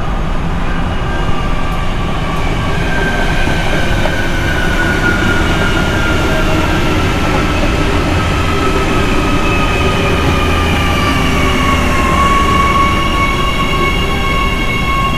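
Train running by: a steady low rumble of wheels on rail, with thin high squealing tones from the wheels that drift slowly lower in pitch.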